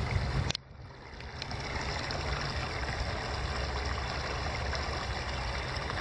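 Small steppe streams murmuring as two of them flow together, over a steady low rumble. About half a second in, the sound drops away sharply and builds back up over the next second.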